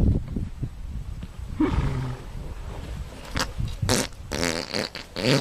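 An animal growling, with several short, wavering pitched calls in the second half.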